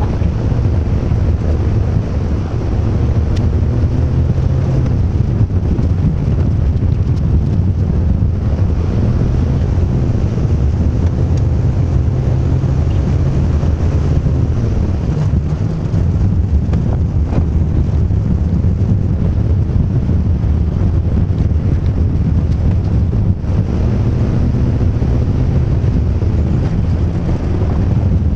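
A vehicle's engine running steadily, heard from inside the cab with wind and road noise; its pitch rises and falls slightly as it drives.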